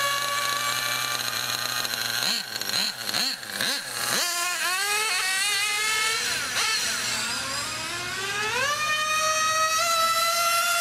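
Radio-controlled car's motor whining, its pitch wobbling up and down a few times, then climbing sharply about four seconds in and again near the end, where it holds at a high steady pitch as the car runs at speed.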